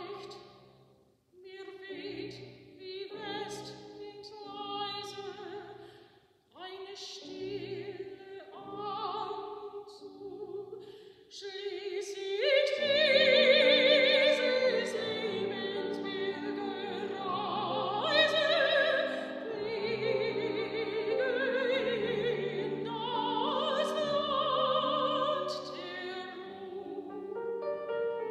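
Classically trained soprano singing an art song with grand piano accompaniment. The first half comes in short, softer phrases with brief pauses; about halfway through the voice rises to a louder, sustained line with vibrato over the piano.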